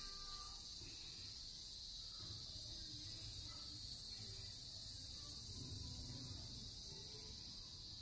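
Steady high-pitched chorus of insects in garden foliage, running without a break.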